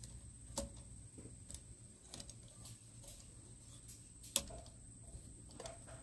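Light metal clicks and taps of a clamp-on chain-sharpening jig being set on a saw chain and its knobs adjusted by hand, with two sharper clicks about half a second in and about four and a half seconds in.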